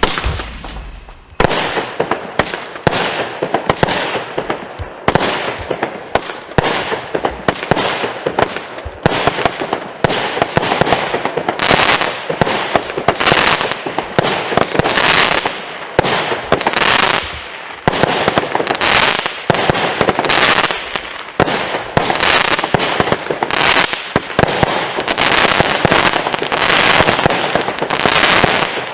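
Platinum Fireworks' Climax 2 the Max firework going off: a long, loud string of shots and bursts fired in quick succession, starting about a second and a half in.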